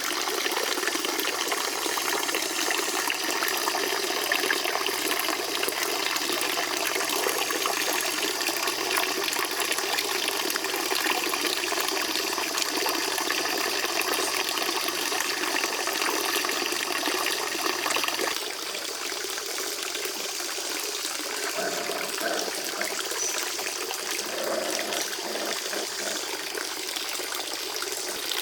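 Water running and splashing steadily; the sound changes and grows a little quieter about two-thirds of the way through.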